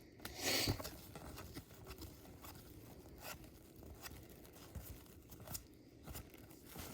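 Cardboard trading cards being handled and sorted: a brief sliding rustle about half a second in, then scattered soft taps and clicks as cards are flipped and set down.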